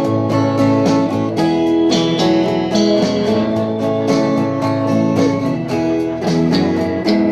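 Acoustic guitar strumming chords in a steady rhythm: the instrumental intro of a song.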